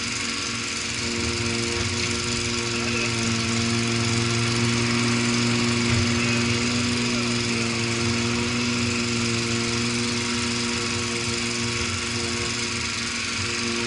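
Engine of a small construction machine running at steady revs, an even hum with no change in speed.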